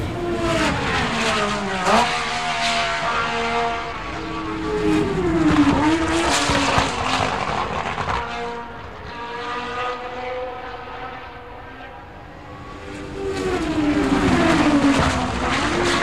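Formula 1 cars' 1.6-litre turbocharged V6 engines passing one at a time, three times. Each engine note drops steeply in pitch and then climbs again as the car goes by, with a quieter gap between the second and third pass.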